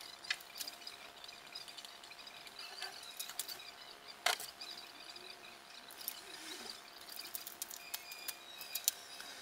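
Protective plastic film being peeled and pulled off clear acrylic ant-nest pieces as they are handled: light crackling, short squeaks and small plastic clicks, with one sharper click about four seconds in.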